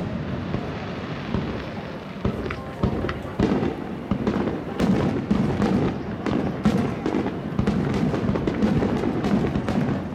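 Fireworks display: aerial shells bursting one after another in a rapid, irregular run of bangs and crackles.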